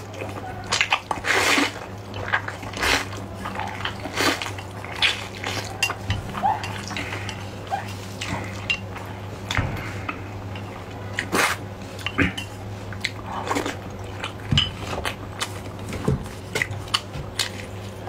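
Close-miked eating sounds: slurping and chewing of spicy fire noodles, with irregular short clicks and smacks of chopsticks against a ceramic dish. A low steady hum runs underneath.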